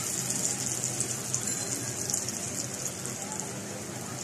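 Piyaju, fritters of split-pea lentil and onion batter, deep-frying in hot oil in a metal pot: a steady sizzle with fine crackling.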